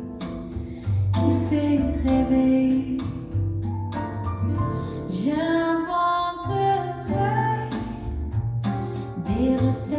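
Music: a woman singing a song in French, with guitar accompaniment and sustained low notes underneath.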